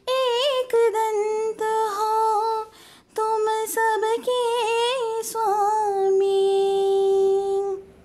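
A woman singing a Ganesh bhajan melody in a single voice, with wavering, sliding notes, then a long held note from about six seconds in that stops just before the end.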